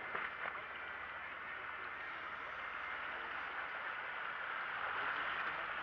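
Steady rushing hiss of wind and water along a sailing yacht under sail in open-ocean waves.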